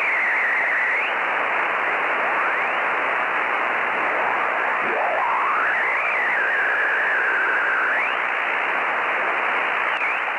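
Shortwave amateur radio receiver's audio: steady band hiss with whistling tones sliding up and down as the tuning is swept. One whistle dips low about halfway, climbs back, holds for a few seconds and then slides up.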